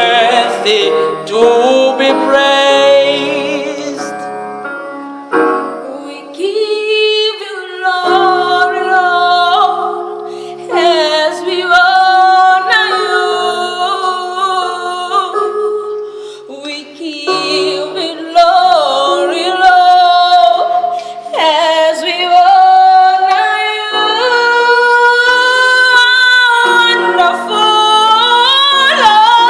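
Singing led by a female voice, with other voices sustaining lower notes beneath it, in phrases of a few seconds each.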